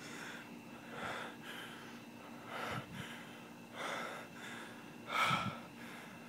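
A person breathing hard close to the microphone: about five loud, gasping breaths at uneven intervals, the strongest about five seconds in.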